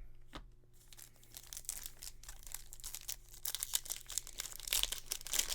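Plastic wrapper of a Topps baseball card pack crinkling and tearing as it is ripped open by hand, in a rapid run of crackles that grows busier toward the end.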